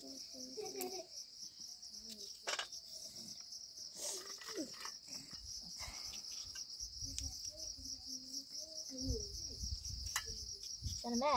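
Insects chirring in a steady, high-pitched drone, with faint voices and some low rumbling underneath.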